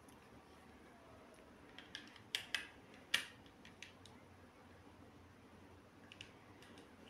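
A few sharp clicks and taps from handling a small plastic mobile phone and its parts, bunched together about two to three seconds in, with a couple of fainter ones later.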